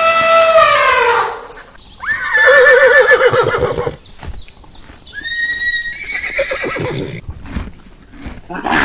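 Horse whinnying: a long, wavering call about two seconds in, then a shorter call and a run of sharp knocks. It opens on a steady held call that bends downward as it ends.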